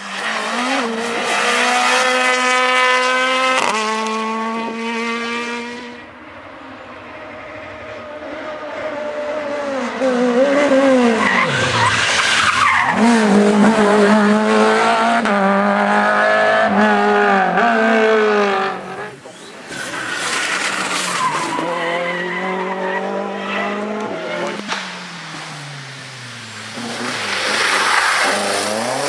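Rally cars driven flat out, engines revving high and climbing through the gears, then dropping away as they pass, with tyre noise from sliding on the loose surface. The sound changes abruptly a few times as one car gives way to another.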